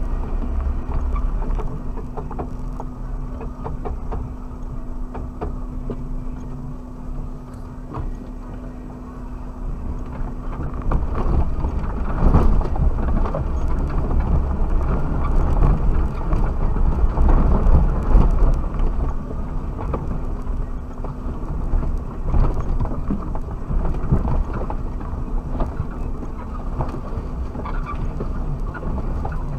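Suzuki Jimny driving off-road, heard from inside the cab: the engine runs with a steady hum, then, from about eleven seconds in, louder rumbling with knocks and rattles as it goes over rough ground.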